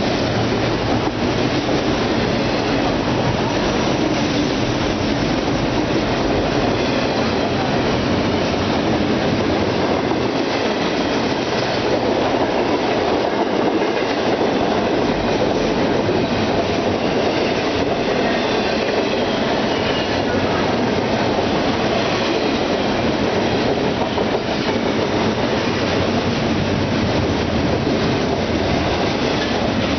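BNSF double-stack container freight train rolling past, its cars' steel wheels on the rails making a steady, unbroken rumble.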